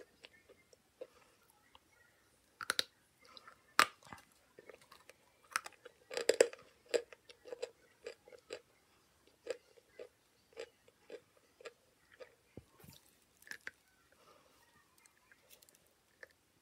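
Chalk being chewed close to the microphone: soft, regular chewing with sharp crunches every so often, the loudest cluster of crunches about six seconds in.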